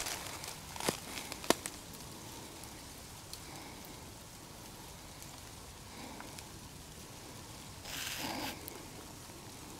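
Faint rustling in dry brush and leaf litter, with two sharp snaps about a second in and a short crunching rustle about eight seconds in.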